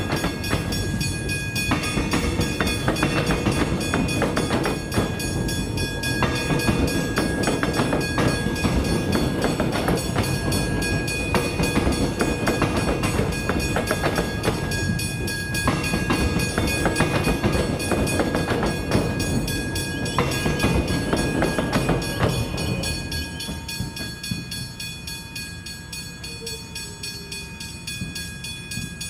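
Electric suburban train running through a level crossing, its wheels rumbling and clattering over the rail joints. The train noise dies away about three-quarters of the way through. The crossing bells keep ringing throughout as a steady high tone.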